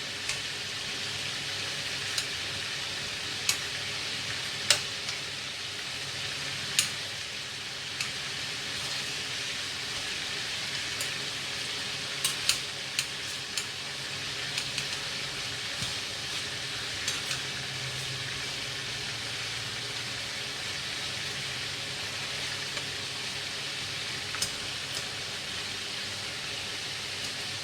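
Pieces of duck frying in hot oil over high heat: a steady sizzle with scattered sharp clicks, a few close together about halfway through.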